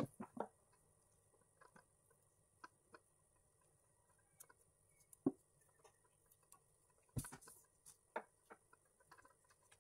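Faint, scattered small clicks and crackles of PVC electrical tape being pulled off the roll and wound by hand around a spliced wire joint. A clearer tap comes about five seconds in, and a sharper crackle just past seven seconds.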